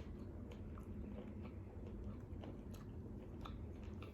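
Close-miked eating: chewing and biting with small, irregular wet clicks, over a faint steady low hum.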